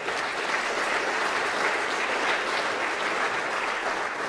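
Audience applauding: dense clapping from a room full of people that holds steady and eases off slightly near the end.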